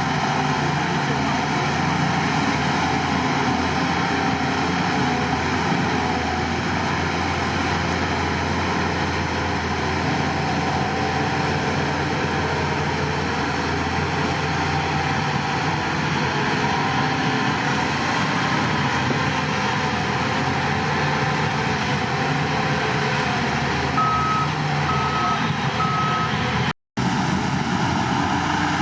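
Heavy diesel earthmoving machinery running steadily under load, with three short reversing-alarm beeps about 24 seconds in. The sound cuts out for a split second shortly after.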